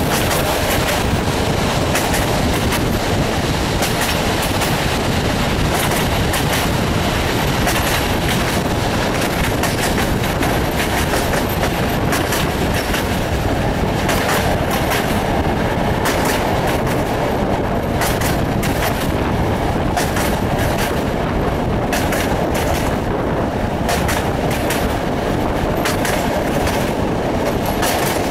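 Passenger train running along the track, heard from an open carriage window: a steady rumble and rush of air, with the wheels clicking irregularly over the rails.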